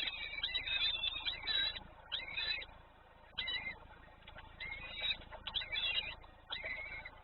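Small birds at a nest chirping: quick clusters of high, twittering calls about once a second, with a quieter gap a few seconds in.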